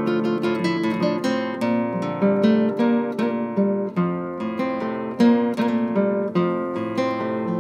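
Solo nylon-string classical guitar playing a plucked melody over bass notes, several notes a second, each ringing on.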